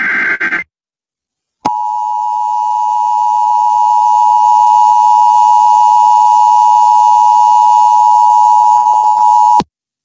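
The tail of an Emergency Alert System SAME header data burst, then after a short pause the EAS two-tone attention signal (853 and 960 Hz sounded together). The attention signal is a steady, loud dual tone held for about eight seconds that cuts off abruptly.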